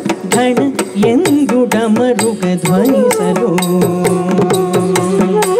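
Live Carnatic music for Bharatanatyam: a singer's ornamented, wavering melody over drum strokes from a mridangam, with a long note held through the second half.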